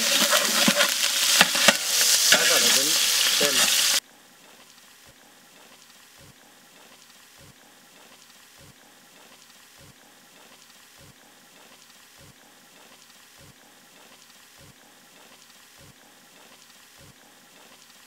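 Chopped green chillies dropped into hot oil in a large aluminium cooking pot, sizzling loudly as they fry. The sizzle cuts off suddenly about four seconds in, leaving only a faint hiss with a soft low tick a little more than once a second.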